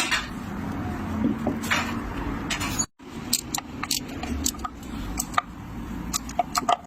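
Scattered metallic clinks and knocks from tools and parts being handled, over a steady low hum. The sound drops out briefly about three seconds in.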